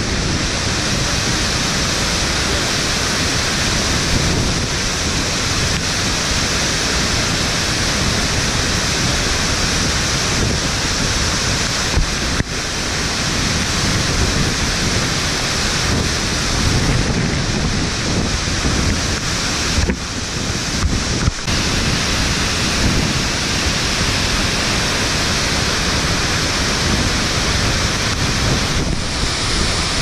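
Gljúfrabúi waterfall heard from inside its rock cave, close to where the water lands: a loud, steady rush of falling water and spray.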